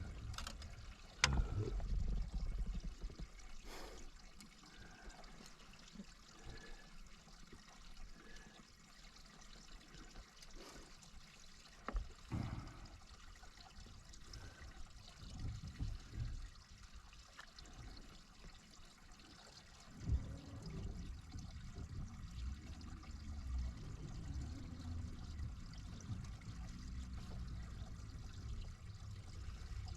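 Water trickling and lapping around a small fishing boat, with a few scattered knocks and bumps.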